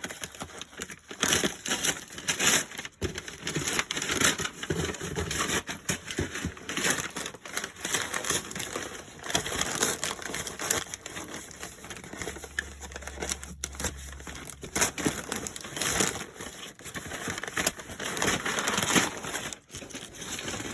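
Packaging being pulled open by hand: continuous crinkling, rustling and crackling of plastic, tape and cardboard, in irregular bursts.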